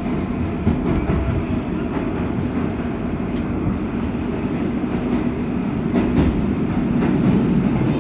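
Moscow metro train running, heard from inside a moving car: a steady low rumble of wheels and running gear with a few sharp clicks. A faint high whine joins about five seconds in.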